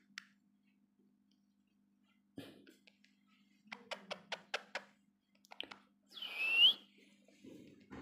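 A green ring-necked parakeet gives one short, harsh call that rises in pitch, about six seconds in. It comes after a quick run of about six sharp clicks, and a faint steady hum lies underneath.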